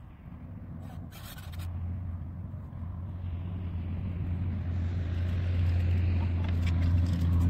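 A low, steady motor-vehicle engine drone that grows steadily louder, with a few faint clicks about a second in.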